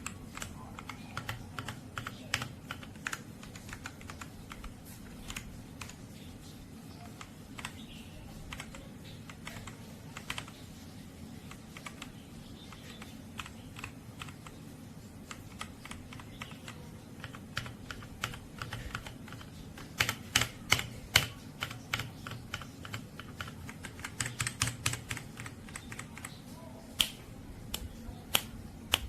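Typing on a Machenike K500 B84 mechanical keyboard: irregular key clicks that come in quicker flurries about two-thirds of the way through, over a low steady hum.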